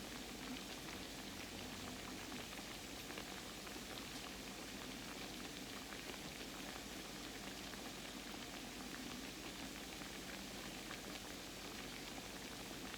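Croquettes frying in hot oil in a pan: a steady, faint sizzle with light crackling and pops.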